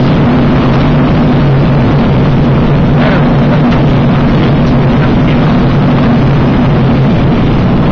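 Steady, loud in-flight noise in the cockpit of a Choucas flying wing: air rushing past with a constant low hum.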